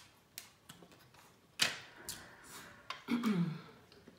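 Boiled crab-leg shell being cracked and pulled apart by hand: a handful of sharp cracks and clicks, the loudest about a second and a half in.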